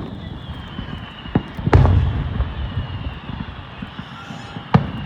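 Fireworks shells bursting: a sharp bang about a second and a half in, a louder one just after that trails off into a low rumble, and another bang near the end.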